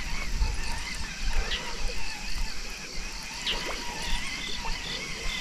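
Outdoor ambience beside a pond: a few short chirps, each sweeping quickly downward in pitch, a couple of seconds apart, over a faint steady trickle of water.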